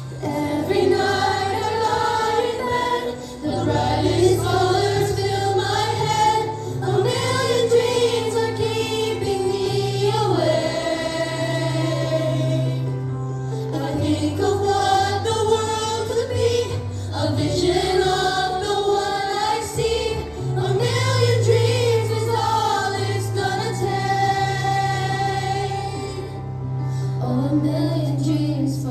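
A group of children singing together in unison over instrumental accompaniment, a sustained sung melody with held notes.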